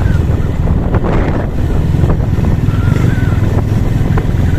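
Engine of the moving vehicle carrying the camera running steadily, with a dense low hum and wind noise on the microphone.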